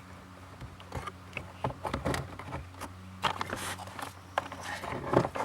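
Scattered light clicks, taps and rustles of hands handling and seating the fuel pump control module in its mount, over a steady low hum. The clicks grow busier in the second half.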